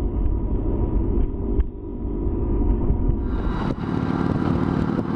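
Motorcycle engine running with heavy wind rumble on the microphone while riding, turning brighter and fuller about three seconds in.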